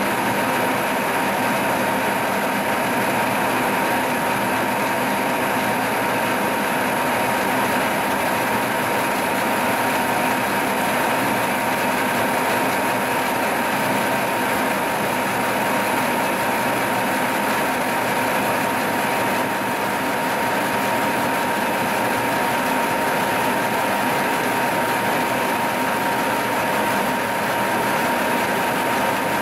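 Milling machine cutting a valve relief into a diesel piston crown with a large rotating cutter: steady spindle and cutting noise with a constant high whine.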